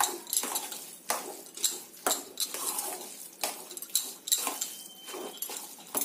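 Steel spoon clinking and scraping against a stainless steel bowl as thick curd rice is stirred and mixed, a sharp clink about twice a second.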